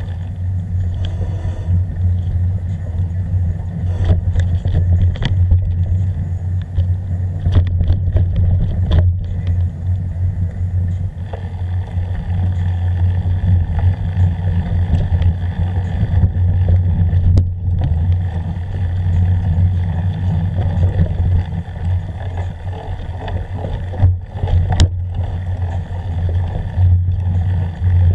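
Steady low rumble of wind and ride noise on an action camera moving along a bumpy forest dirt trail, with scattered knocks and rattles as it goes over bumps.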